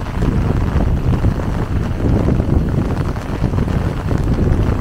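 Heavy cyclone rain falling steadily, with gusts of wind rumbling on the microphone.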